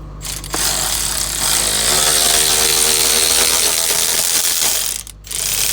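A power tool running loudly with a hissing whine for about five seconds, cutting out briefly near the end and starting again for about a second.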